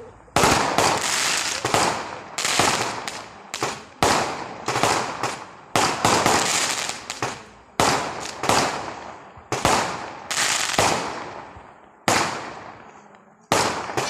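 Aerial fireworks going off in quick succession: about a dozen sharp bangs, roughly one a second, each dying away in a fading crackle before the next.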